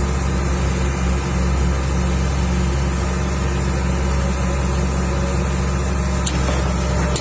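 Caterpillar E120B excavator's diesel engine running steadily with a constant low hum.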